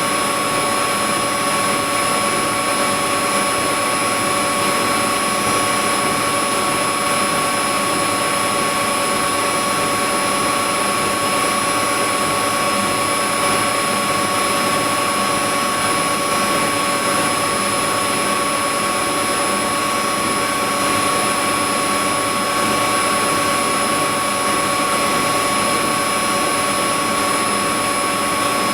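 Whirlpool Indiana 1400 front-loading washing machine in its spin cycle, the drum turning at a steady high speed with a constant whine over a rushing hum.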